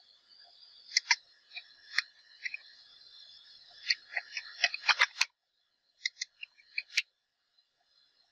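Computer keyboard keys clicking as a command is typed: irregular keystrokes, with a quick run of them about four to five seconds in and a few more near the end, over a faint steady high whine.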